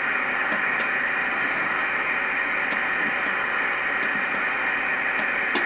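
Steady static hiss from an Icom IC-718 HF transceiver's speaker, cut off above the voice range, with faint scattered ticks.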